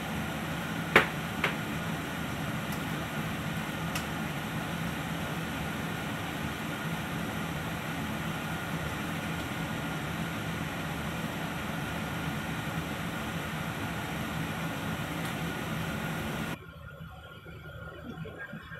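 Steady whir of a kitchen extractor fan with a low hum, cutting off suddenly near the end. About a second in, two sharp clinks of a cooking utensil against cookware.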